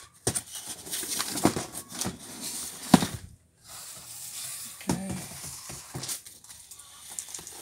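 A cardboard guitar shipping box being handled and opened: irregular scraping and rubbing of cardboard with knocks, the loudest a sharp knock about three seconds in.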